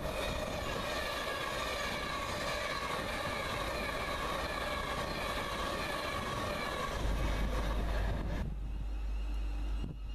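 Virgin Trains Class 390 Pendolino electric train running through the station at speed: a loud rush of wheels on rail with a steady whine over it, and heavier rumble as the rear passes. The sound cuts off suddenly about eight and a half seconds in.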